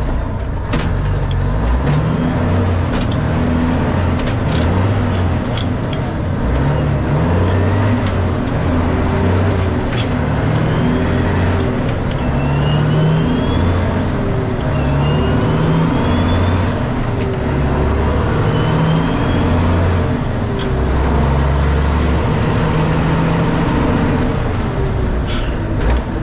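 Freightliner FLD semi truck's diesel engine pulling away and accelerating through the gears, heard from the cab: the engine note repeatedly climbs and drops as each gear is shifted. Rising whistles come in with the pulls through the middle.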